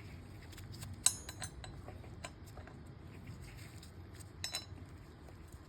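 Small metal hardware and hand tools clinking: a sharp clink about a second in, scattered light ticks, and a short flurry of clinks about four and a half seconds in.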